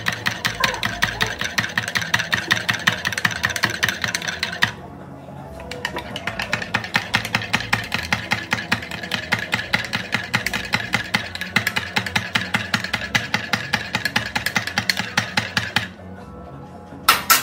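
Metal spoon stirring in a ceramic mug, clinking rapidly and evenly against the sides. The stirring pauses briefly about five seconds in, stops near the end, and is followed by one sharper clink.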